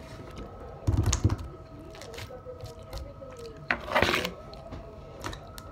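Rustling and knocking from handling close to the microphone, with a cluster of low thuds about a second in and a louder scrape around four seconds, over a faint steady hum.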